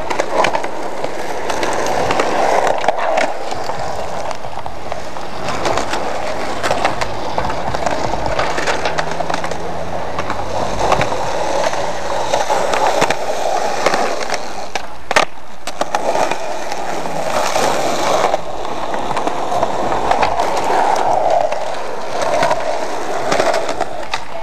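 Skateboard wheels rolling over rough concrete and asphalt, with frequent clacks and knocks of the board as riders pop and land tricks. One loud, sharp impact about fifteen seconds in.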